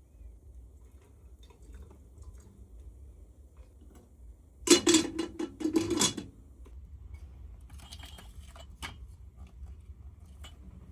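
A burst of clattering and knocking lasting about a second and a half, about halfway through, like hard objects being handled or set down, followed by a few scattered light clicks over a low steady rumble.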